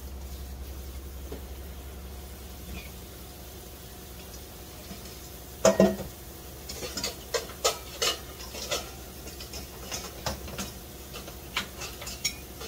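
Steady water from a kitchen tap, then about six seconds in a loud clatter of pans being pulled out of a cupboard, followed by a run of lighter metal clanks and knocks as cookware and a stainless mesh colander are handled.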